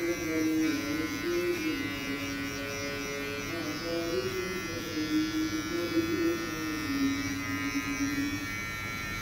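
Electric hair clipper buzzing steadily as it trims short hair at the nape of the neck, with a wavering melodic tone underneath.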